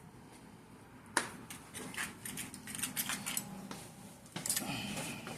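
Handling noise: a run of light, irregular clicks, taps and rattles from hard parts being picked up and moved, starting about a second in.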